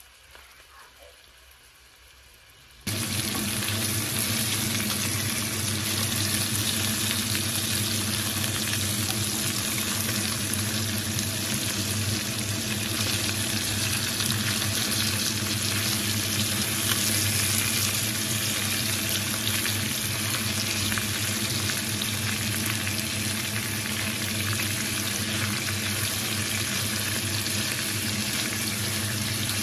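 Pike portions frying in butter and oil in a pan: a steady, loud sizzle that starts suddenly about three seconds in after a quiet moment.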